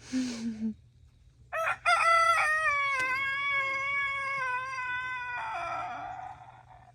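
Rooster crowing once, loud: a few short broken notes, then one long drawn-out note that turns rough and trails off, lasting about five seconds in all. A short, lower-pitched sound comes just before it, right at the start.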